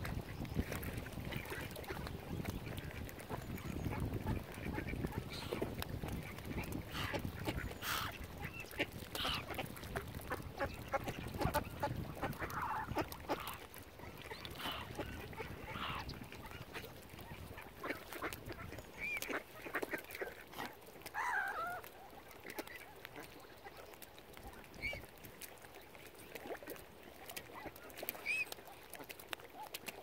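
Mallard ducks and mute swans calling here and there: short quacks and honks every few seconds, with small clicks between them and a low rumble through the first half.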